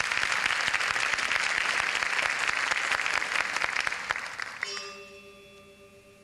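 Audience applauding, fading out about four and a half seconds in. A quiet, sustained ringing tone of the traditional Balinese and Javanese music then begins and holds.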